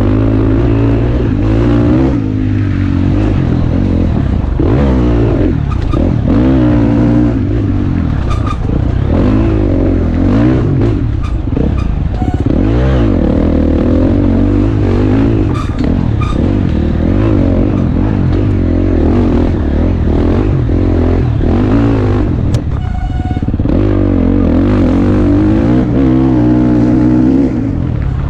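Enduro dirt bike engine being ridden hard, its pitch rising and falling over and over with throttle changes through the trail's turns. Occasional sharp knocks and clatter from the bike over the rough ground.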